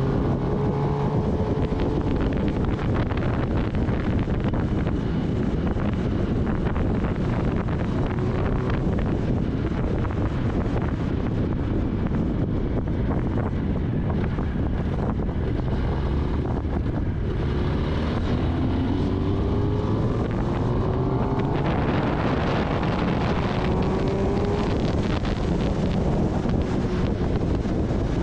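Kawasaki Ninja ZX-10R's inline-four engine running at road speed under heavy wind buffeting on the microphone. The engine note rises twice in the second half as the bike accelerates.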